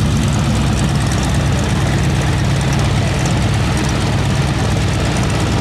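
Boeing Stearman biplane's seven-cylinder Continental W-670 radial engine and propeller running steadily.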